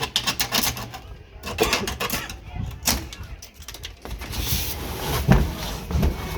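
Packaging of a new washing machine being handled: a quick run of sharp crackles and clicks, then a rustling hiss with a couple of dull thumps near the end.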